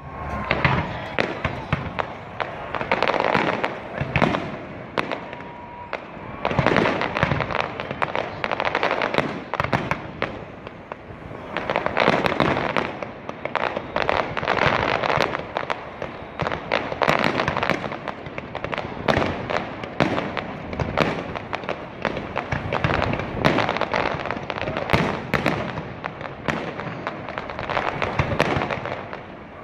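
Fireworks display: a dense, continuous run of bangs and crackles, swelling into louder barrages every few seconds.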